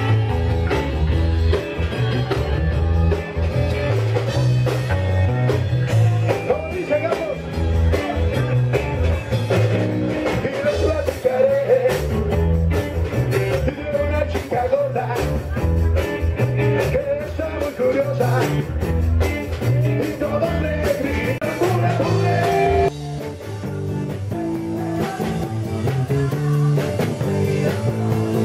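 Rock music with a singing voice and electric guitar over a steady beat. A little after three-quarters of the way through, the heavy bass drops out and the music becomes thinner and slightly quieter.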